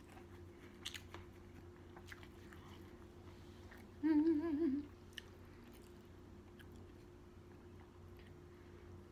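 A person chewing with the mouth closed, with faint wet mouth clicks. About four seconds in comes a short, wavering hummed "mmm" lasting under a second.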